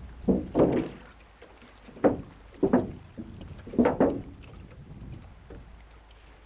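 Oars worked from an inflatable boat: about four strokes in the first four seconds, each a short swish and splash that fades away, over a low wind rumble.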